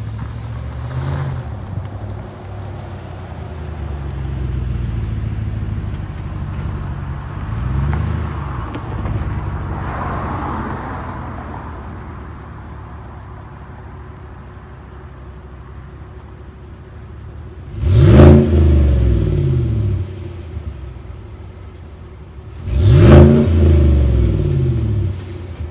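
2017 Chevrolet Silverado's 5.3-litre V8 through the stock exhaust with a 4-inch tip. It runs at low speed as the truck moves into place, idles, then is revved hard twice, about five seconds apart, near the end.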